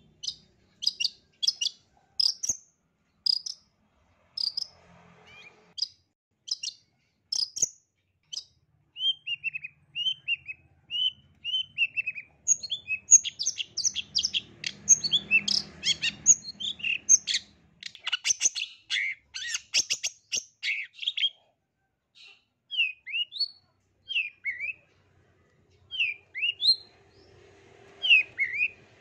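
Long-tailed shrike (cendet) singing: a run of sharp, high chirps, then a string of short downslurred whistles, a dense burst of fast twittering in the middle, and spaced down-sweeping notes toward the end.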